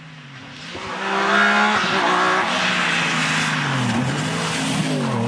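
BMW E36 3 Series rally car's engine running hard as the car approaches, getting loud about a second in; the engine note rises and falls as the driver accelerates and lifts off, dropping twice in pitch.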